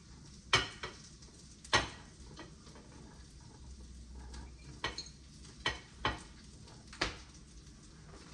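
Eggs frying in a pan with a faint sizzle, while a cooking utensil knocks and scrapes against the pan about seven times at uneven intervals.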